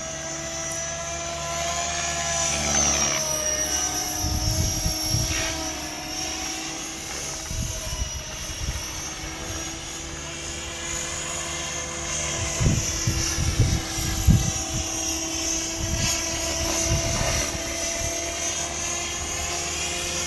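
Radio-controlled model helicopter flying loops overhead: a steady whine from its engine and rotors that rises and falls in pitch as it manoeuvres, with several bursts of low rumble, the loudest a little past the middle.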